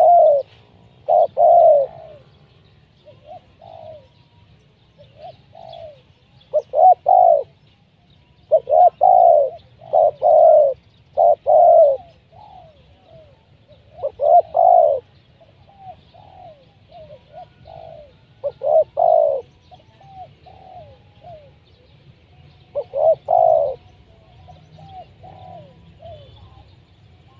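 Spotted dove cooing over and over in short rolling phrases of a few notes each. Loud phrases come every few seconds, with softer coos between them.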